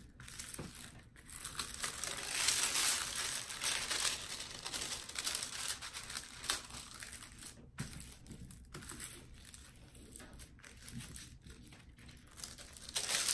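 A creased diamond painting canvas with its plastic cover film crinkling as hands smooth it flat and lift a corner, loudest a couple of seconds in and softer later.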